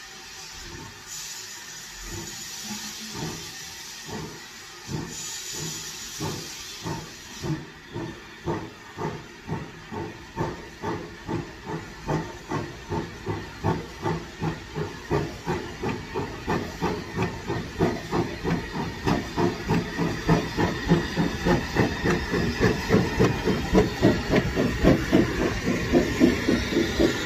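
Saddle tank steam locomotive pulling away with a train of coaches: its exhaust chuffs start slow and quicken steadily, growing louder as it approaches. There are two bursts of steam hiss near the start.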